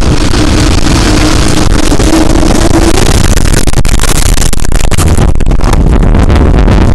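Tornado wind blowing, very loud and continuous, with a steady hum-like tone under it for the first three seconds. From about three and a half seconds in, a rapid clatter of sharp knocks and cracks joins the noise.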